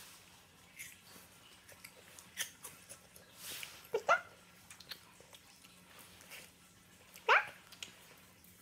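Shih Tzu puppy giving short, high yipping barks that rise sharply in pitch, a quick pair about four seconds in and another near the end, begging for a piece of fruit held above it. Light clicks and taps come between the yips.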